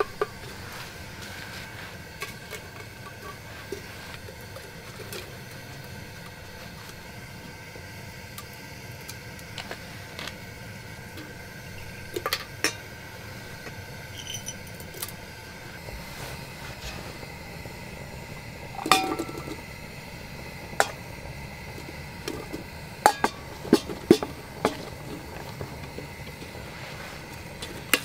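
Light clinks and knocks of a metal measuring cup, a bottle and utensils against an enamel pot as seasonings and spices are added. The knocks are scattered and come mostly in the second half, over a steady background noise.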